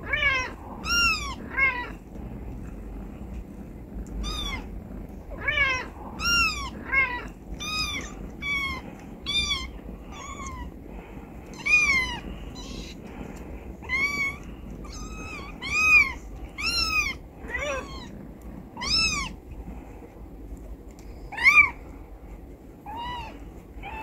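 Newborn kittens mewing: short, high-pitched calls that rise and fall in pitch, roughly one a second and some in quick pairs, over a low steady rumble.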